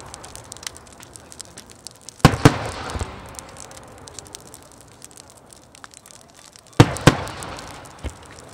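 Fireworks bursting: a pair of loud bangs a little over two seconds in and another pair near the end, each fading out in a long echo, with faint crackles in between.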